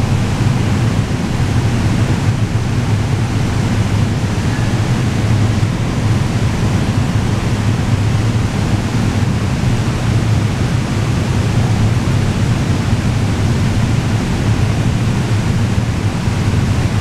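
Steady low rumbling background noise of an underground train station, with no train passing.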